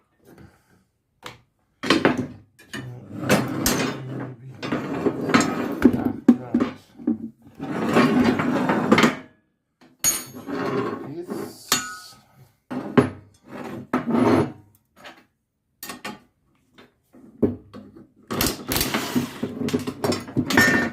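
Hand tools working on the steel support legs and fittings of a log splitter: a series of irregular knocks and clanks, with longer stretches of scraping and rattling several times.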